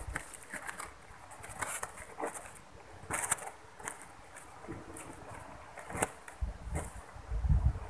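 Rustling and flapping of a chula kite's fabric as it is handled and launched, with scattered sharp clicks, the clearest about three and six seconds in. A low buffeting rumble comes near the end.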